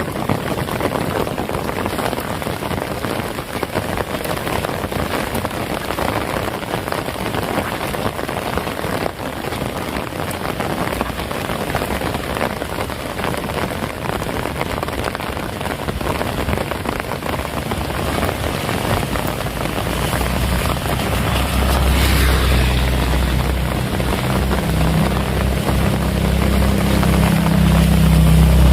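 Heavy rain falling steadily, an even hiss of drops. About two-thirds of the way in, a low rumble builds beneath the rain and grows louder toward the end.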